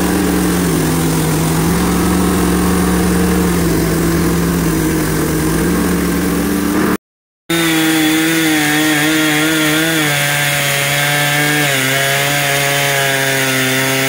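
Small gas engine of a Hud-son bandsaw sawmill running steadily. After a sudden cut, a Husqvarna chainsaw running under load as it rips lengthwise along a log, its pitch wavering and dropping a step near the end.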